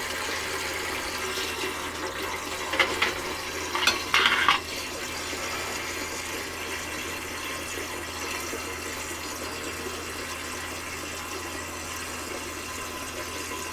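Water running steadily from a pressurised portable shower sprayer into a sink, a hissing stream at less than optimum pressure. Two brief louder splashes come about three and four seconds in.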